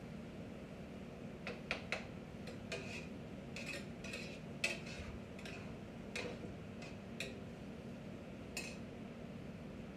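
Kitchen clatter: metal utensils and dishes clinking together in about fifteen irregular light knocks, the loudest about halfway through, over a steady low hum.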